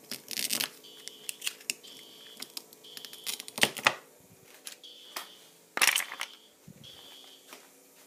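Knocks, clicks and rustles of objects being handled, loudest around four and six seconds in. Under them, an alarm gives a short high beep about once a second: the fire alarm still going off.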